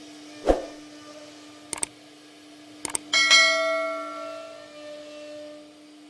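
Several sharp knocks, then a metal object struck hard, ringing with a clear, bell-like tone that dies away over about two seconds, over a steady hum.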